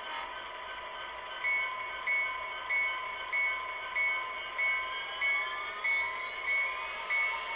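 SoundTraxx Tsunami sound decoder in an HO-scale Athearn Genesis Union Pacific SD70M model, playing diesel locomotive sound through its small speaker. The prime mover runs steadily. The bell starts ringing about a second and a half in, at about one and a half strikes a second. From about halfway a rising whine climbs as the engine revs up.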